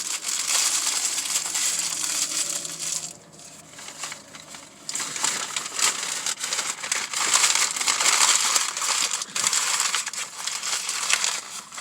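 Paper food wrapper being crumpled and crushed in the hands close to the microphone, a dense crackling with many sharp crinkles. It pauses for about two seconds near the middle, then starts again louder.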